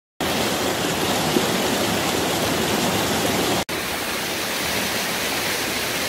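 Mountain stream rushing over rocks in small cascades: a steady rush of water, broken by a brief dropout a little past halfway.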